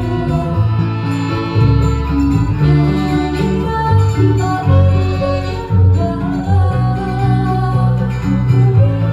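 Background music led by guitar over a bass line that moves from note to note.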